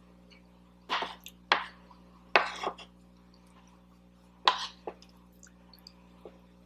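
Close-miked eating sounds: about six short, sharp mouth and utensil sounds, clicks and smacks of chewing meatloaf and mashed potatoes, spaced irregularly with quiet between them.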